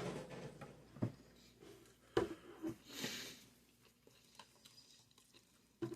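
Quiet eating sounds from someone eating sushi: a few soft clicks and knocks of chewing and handling food, with a short sniff about three seconds in.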